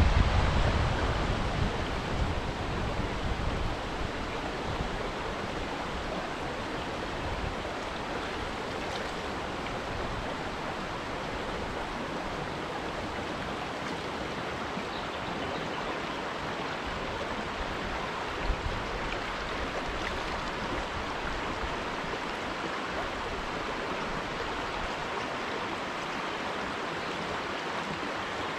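Shallow river running over boulders and stones: a steady rushing of flowing water.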